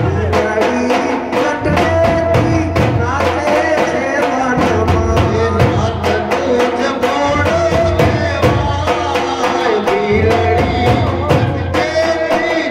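Garba folk music with a steady drum beat and a wavering melody line.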